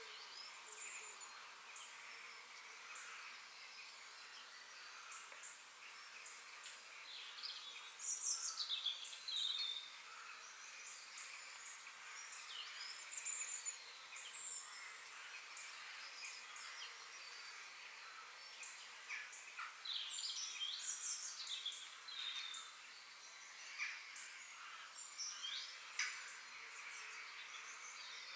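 Forest ambience: several birds chirping and whistling over a steady hiss of insects, with bursts of bird song a few times.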